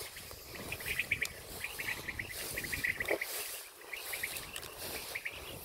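High chirping in short, rapid trains of clicks, repeated again and again, over a low rumble.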